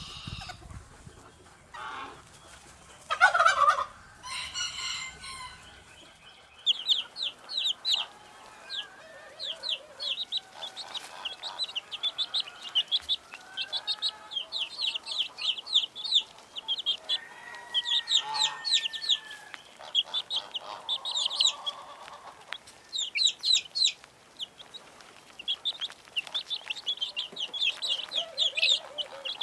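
Chickens calling, with one loud call about three seconds in. From about six seconds on, a dense chorus of chicks peeping rapidly, with occasional softer hen clucks beneath.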